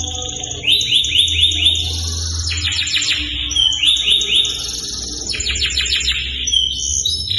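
Canary singing without pause: rapid trills of repeated notes, switching to a new trill about every second, over a low steady hum.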